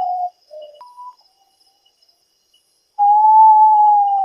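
A bird's call: a long, clear whistled note falling slightly in pitch, followed by a couple of short notes. The long note starts again about three seconds in. A faint, steady insect trill sits behind it.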